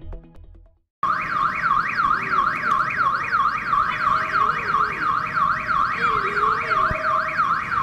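An electronic siren or alarm sweeping fast up and down, starting about a second in, as the end of the intro music dies away.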